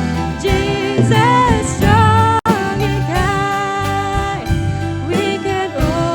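Worship song: a sung melody over instrumental backing, with a very brief dropout about midway.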